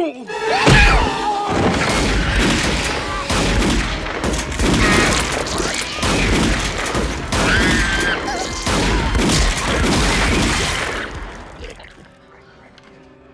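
Film action sound effects: a rapid, dense barrage of gunfire-like cracks and crashes, with shrill wavering screeches over it, dying away about eleven seconds in to a low hum.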